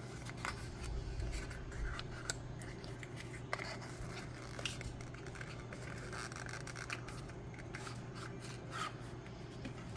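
Hands handling a small paperboard nail-polish box: the tuck flap is opened and the box slid apart, giving soft rubbing and scraping of cardboard with scattered small clicks.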